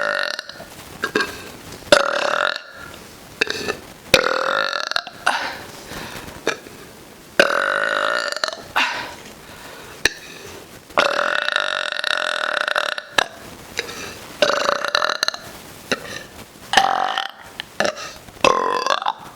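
A woman burping repeatedly close to the microphone: about eight loud burps in a row with short pauses between, some short and some drawn out for up to two seconds.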